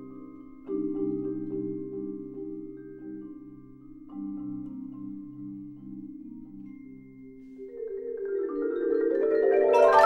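Percussion ensemble of marimbas and other mallet instruments playing held chords that fade away, with new chords entering about a second in and again about four seconds in. From about seven and a half seconds a rising swell builds to a loud, bright ringing climax at the very end.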